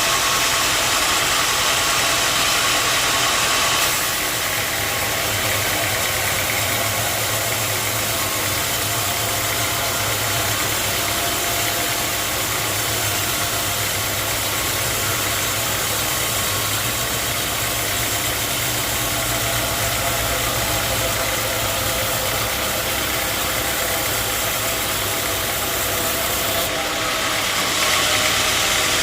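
Sawmill machinery running steadily: an engine-like hum under a broad hiss, changing in tone about four seconds in and again shortly before the end.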